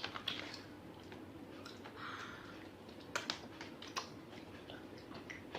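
Faint, scattered clicks and crinkles of a plastic snack bag being handled and opened by hand.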